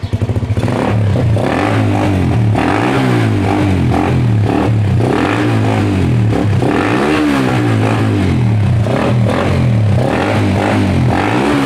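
Suzuki Raider 150 single-cylinder four-stroke motorcycle engine breathing through an aftermarket Apido power pipe exhaust, revved up and down repeatedly as an exhaust sound test.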